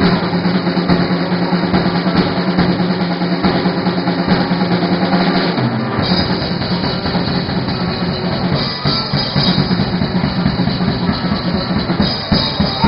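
Loud rock music driven by a drum kit.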